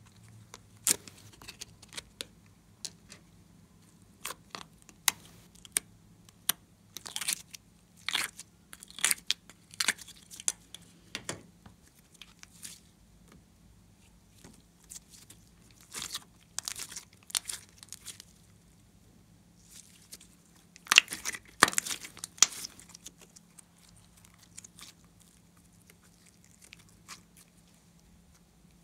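Hands working glossy slime and a plastic clay case: a run of sharp clicks, pops and crackles in bunches, loudest about two-thirds of the way through, over a faint steady hum.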